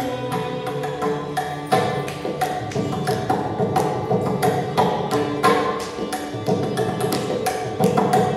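Carnatic music in Mohana raga and Adi tala: a mridangam plays a dense run of sharp strokes under a violin and voice carrying the melody.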